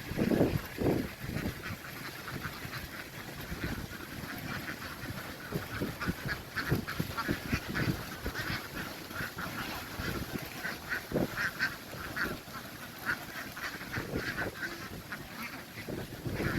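A large flock of domestic ducks quacking all at once, many short overlapping calls merging into a continuous chatter. A few louder, lower calls stand out about a second in and near the end.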